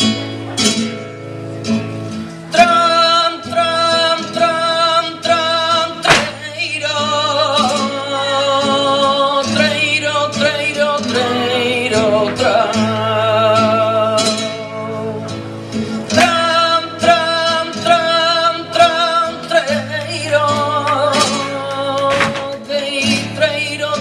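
Flamenco song: a singer with a wavering, ornamented voice over guitar, with sharp percussive strikes through it.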